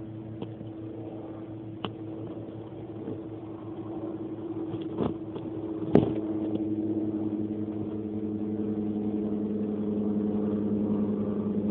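A motor running steadily, a low hum of a few held tones that shifts at a sharp click about six seconds in and slowly grows louder; a few fainter clicks come earlier.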